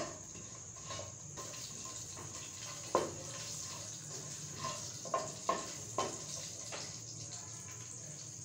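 Cumin seeds sizzling in hot oil in a nonstick wok, a steady hiss. A wooden spatula knocks and scrapes against the pan as it stirs, sharply about three seconds in and several times around five to six seconds in.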